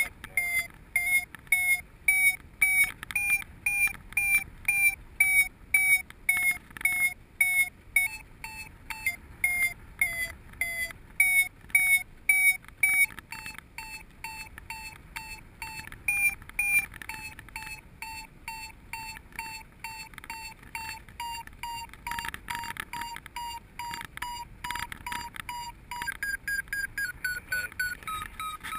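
Paragliding variometer beeping, a few short beeps a second, its pitch drifting up and down with the climb rate; the beeping signals that the glider is climbing in lift. Past the middle the beeps sit higher and softer, and near the end they run down in a quick falling series.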